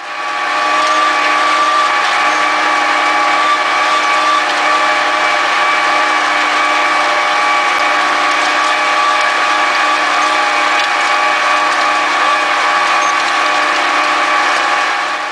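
Massey Ferguson 3085 tractor running steadily under load while pulling an Amazone Catros 3001 disc harrow through soil: a constant mechanical drone with a steady whine over it.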